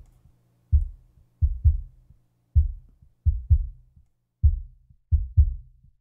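Kick drum isolated from a stereo drum mix by a steep high-cut filter and a gate: short, muffled low thuds in a repeating pattern of a single hit and then a quick pair, with silence between them. No snare comes through.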